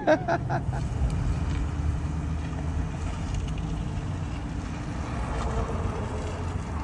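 Steady low rumble of a car driving, heard from inside its cabin.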